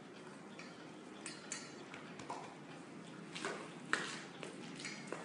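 A dog eating from a stainless steel bowl on a tiled floor: scattered light clinks and taps of the metal bowl as it feeds, the sharpest about four seconds in.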